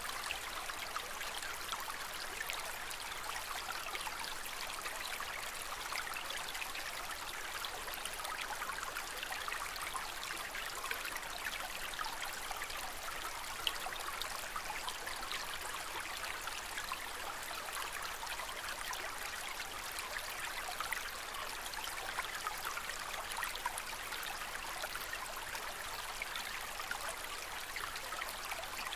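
Gentle, steady trickle of aquarium water: a dense patter of tiny splashes and bubbles with no change in pace.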